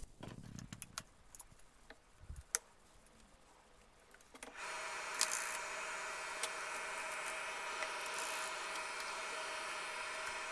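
A few faint clicks of film and small metal parts being handled in the threading path of a Silma 250S Super 8 projector. About four and a half seconds in, the projector's motor starts and runs with a steady hum.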